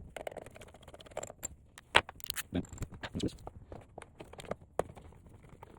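Small clicks, taps and scrapes of a hand tool on the fittings of a hot lather machine as a part is unscrewed, with one sharper click about two seconds in.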